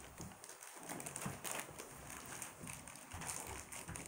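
Faint rustling and light clicks from small plastic toy pieces and their wrapping being handled.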